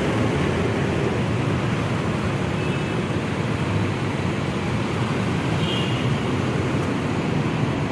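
Large diesel coach engines running at low speed as buses pull out, mixed with passing cars and motorbikes: a steady low rumble of traffic.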